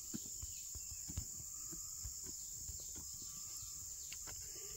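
Steady high-pitched insect chorus, crickets or similar, with scattered soft knocks and thuds.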